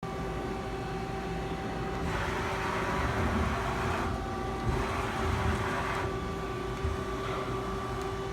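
Nakamura-Tome SC-250 CNC turning center running under power with a steady hum and whine. Two hissing stretches of about two seconds each come about two and four seconds in.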